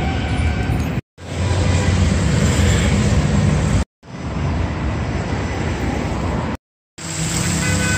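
Outdoor city street noise: a steady rumble of traffic, broken three times by brief silences where short clips are cut together.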